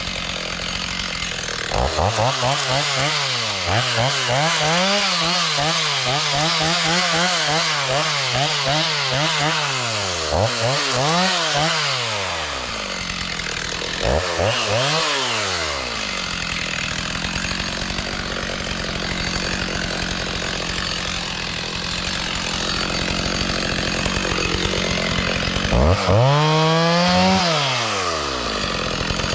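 Two-stroke chainsaw revving up and cutting, its pitch wavering under load through a long cut of about ten seconds, then dropping back to idle. Two shorter bursts of cutting follow, one in the middle and one near the end.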